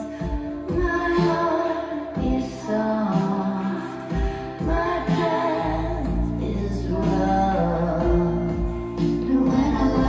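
A song with a female voice singing over deep bass, played through Sonus Faber Duetto active bookshelf speakers and picked up in the room by a phone microphone.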